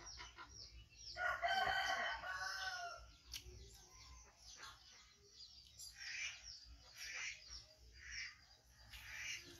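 A rooster crowing once, a long pitched call of about two seconds starting about a second in, followed by several shorter, fainter calls in the second half.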